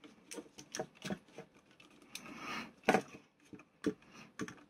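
Small screwdriver turning screws into a model kit's panel: a run of irregular light clicks and ticks as the tip works in the screw heads, with a brief scraping rub about two seconds in.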